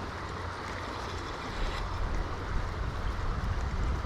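Steady rush of river water, with wind buffeting the microphone as a low, uneven rumble.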